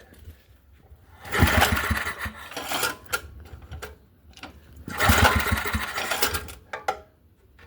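Small Briggs & Stratton 4 hp single-cylinder engine on a snow thrower being cranked with the pull starter twice, each pull a second or two of fast chugging that dies away without the engine catching: it is failing to start.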